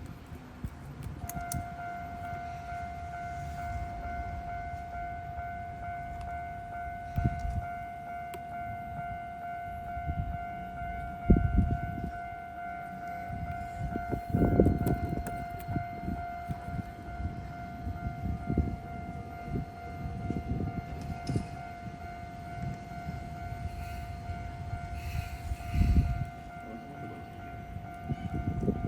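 Level-crossing warning alarm of a Tokyo Sakura Tram crossing starting about a second in and sounding steadily, signalling an approaching tram. Several low thumps come through under it.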